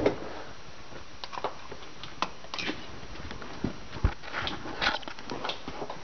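Scattered light knocks, clicks and rustles at uneven intervals, the handling and movement noise of someone shifting about and getting down out of a truck cab.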